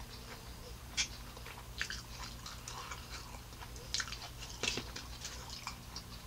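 Scattered sharp crackles and clicks close to the microphone: a small plastic cup of ranch dressing squeezed out over a pizza slice, with mouth sounds between bites. The loudest clicks come about a second in and again about four and a half seconds in.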